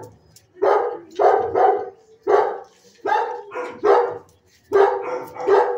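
Dog barking repeatedly from a shelter kennel: about nine sharp mid-pitched barks, several coming in quick pairs, with short pauses between.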